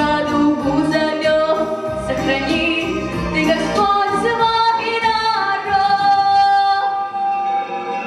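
A girl sings in Russian into a microphone, amplified through the hall's speakers, over a recorded instrumental backing track.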